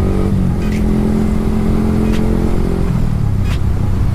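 Yamaha R15 V3's single-cylinder engine running under way, its note dropping to a lower pitch about three seconds in as the rider eases off.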